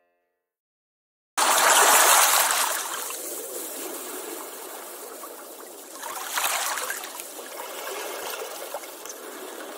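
Running, splashing water that starts abruptly after about a second of silence, an even rush that swells and eases a few times.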